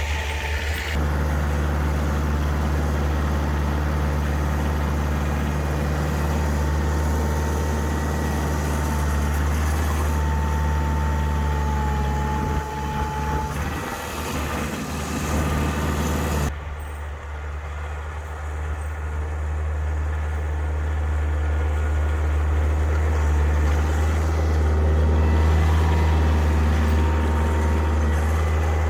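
Kioti compact tractor's diesel engine running steadily under load while it drives a snowblower, with a hiss on top that drops away suddenly about two-thirds of the way through.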